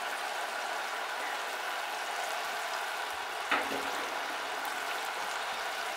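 Bacon, onion and molasses sauce sizzling and bubbling steadily in an enameled cast-iron pot over a medium-high gas flame, with one short knock about three and a half seconds in.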